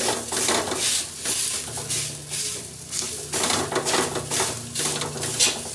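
Metal spoon scraping and pressing ground urad dal filling against a kadhai, about two strokes a second, with the oil sizzling under it. The dal is being pressed down as it fries so its raw inside cooks through.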